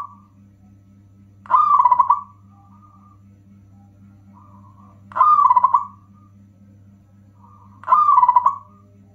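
Zebra dove (perkutut) cooing: three short, fast-stuttering coo phrases, about three seconds apart, over a steady low hum.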